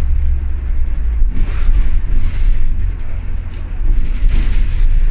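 Deep, steady rumble of a bus's engine and running gear heard from inside the passenger cabin.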